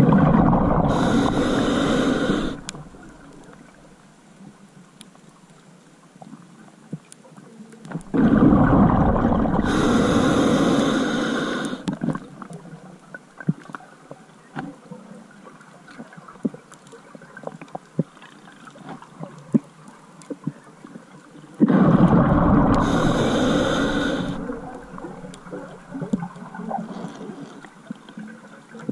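Scuba diver's exhaled breath rushing out of the regulator as bubbles, three bursts of a few seconds each, roughly ten seconds apart, heard underwater. Faint scattered clicks and crackle fill the gaps between breaths.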